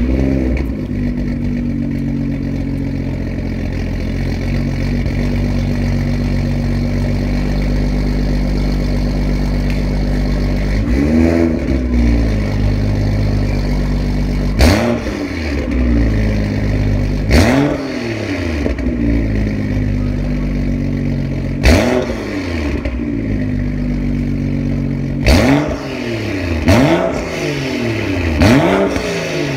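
BMW F30 335i's turbocharged 3.0-litre inline-six, through an Fi catback valvetronic exhaust with dual tips, starting from cold and settling into a steady idle. From about 11 s in it is free-revved in about seven short throttle blips, each rising and falling in pitch, coming closer together near the end.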